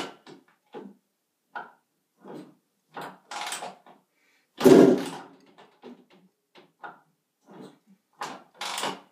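Honda CR125 two-stroke single being kicked over on its kickstarter without catching: four separate kicks with small clunks between, the loudest about five seconds in, and no steady running.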